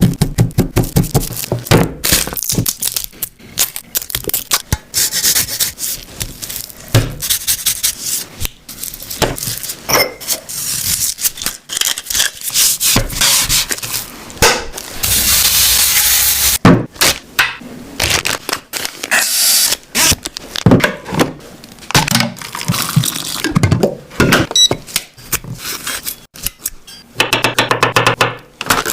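Irregular run of sharp knocks, cracks and scraping sounds, with a steady hiss lasting about two seconds around the middle.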